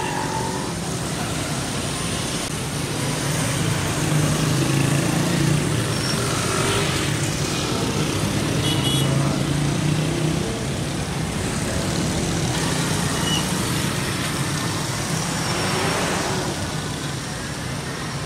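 Heavy city road traffic: a steady wash of car and motorbike engines and tyre noise.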